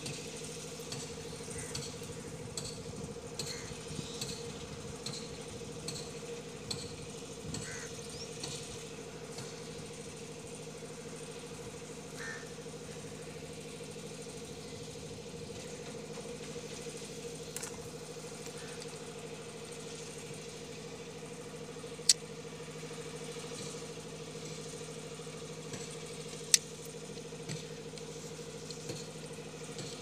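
A steady engine hum with a few even low tones, over small clicks and scrapes of hands stripping the sheath of an ADSS fibre optic cable. Two sharp clicks stand out, about two-thirds of the way in and again some four seconds later.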